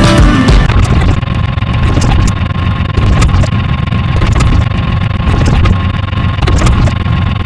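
An engine running with a loud, steady low rumble, a steady hum above it and scattered sharp clicks.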